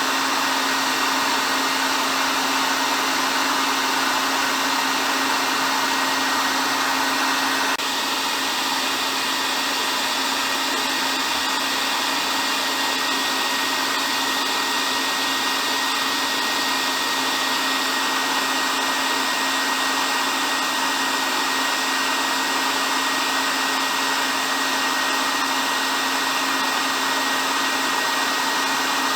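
Hair dryer running continuously: a steady rush of blown air over a constant motor hum with a faint high whine, shifting slightly in tone and level about eight seconds in.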